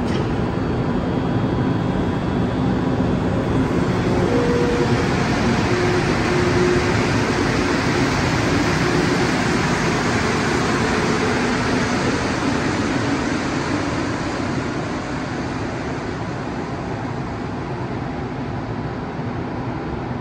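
Montreal Metro MR-73 rubber-tyred train pulling out of the station. Its running noise swells to a peak a few seconds in, then slowly fades as it leaves.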